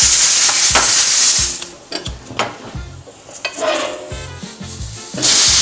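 A spoon stirring a pot of boiling red peas on a gas stove and knocking against the pot a few times. A loud hiss fills the first second and a half and comes back briefly near the end.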